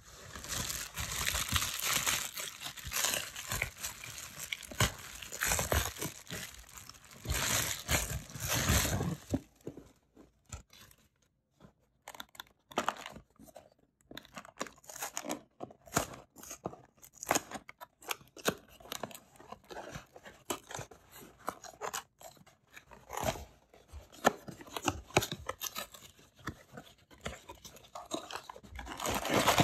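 Cardboard box of a Lego set being handled and opened. There is dense crunching and tearing for about the first ten seconds, then sparse taps and rustles, and it grows dense and loud again near the end.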